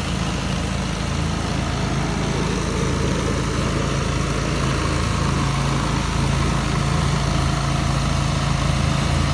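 An engine on a concrete site running steadily at an even speed.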